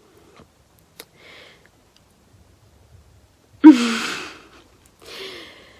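A woman sighs audibly, a short voiced start trailing off into a breath out, about two-thirds of the way in, with a softer breath out after it. A faint click about a second in.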